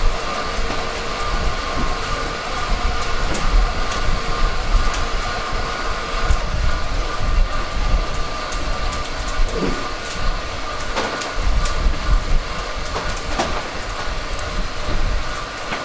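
Steady rumble of running machinery with a constant hum, broken now and then by light clicks.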